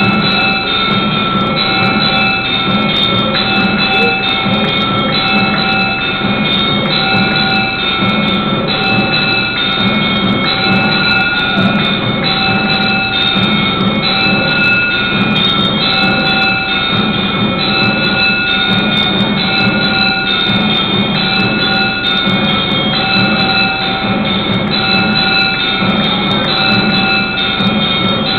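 Temple bells ringing loudly and continuously in a steady repeating clangour, with many sharp strikes: the bell accompaniment to an arati lamp offering.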